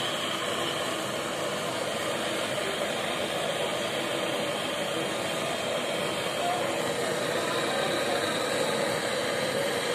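Gas brazing torch flame hissing steadily while brazing a copper joint on a refrigerator compressor's discharge line.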